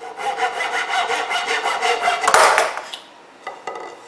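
Hand pull saw rasping through a wooden handle in quick strokes, loudest a little over two seconds in as the cut is finished, then stopping, with a few light clicks after.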